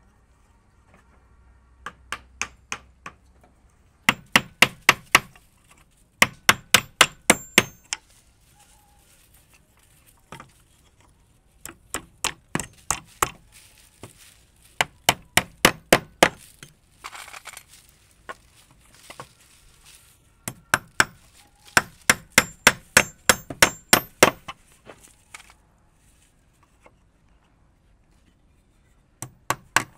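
Hammer driving nails into wood in quick runs of blows, about four or five a second, each strike with a ringing metallic clang. The runs come in several bursts with short pauses between them.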